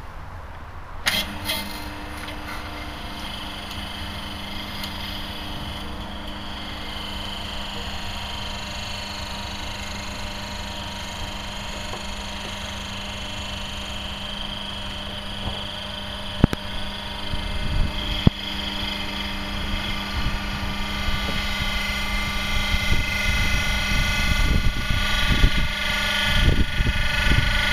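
Electric motor and hydraulic pump starting about a second in, then running with a steady hum and whine while pumping a 95/5 water-in-oil emulsion instead of hydraulic oil, set for about 200 bar. A couple of sharp clicks come past the middle, with low rumbling toward the end.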